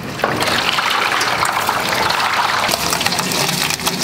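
Water poured from a bucket onto a shed roof, running off into the rain gutter in a steady rush. The pour is a test that the gutter drains.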